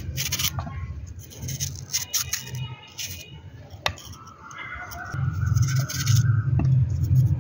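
Light scraping and clicking of bitter gourd (karela) being peeled, the strips of skin dropping onto a plate, with one sharp click about four seconds in. A low hum and faint background voices grow louder from about five seconds in.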